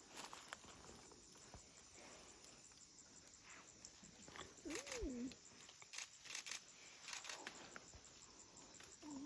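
Faint rainforest ambience: a steady high insect drone under scattered rustles, with a short call that rises and falls in pitch about five seconds in and a similar brief call near the end.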